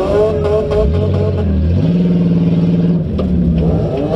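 Demolition derby car engines revving. The pitch rises at the start and then holds steady, then drops to a lower steady note about halfway through, with a few sharp knocks over the top.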